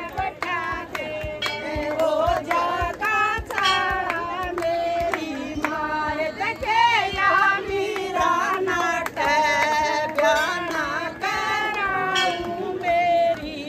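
Women singing a devotional bhajan together in a group, in a call-and-response style, accompanied by hand claps that land as frequent short, sharp strokes.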